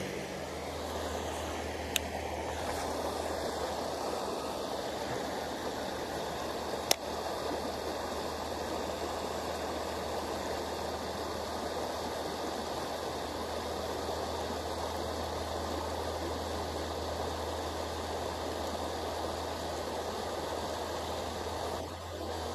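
Creek water running steadily through a shallow ford. Two sharp clicks sound over it, one about two seconds in and one about seven seconds in.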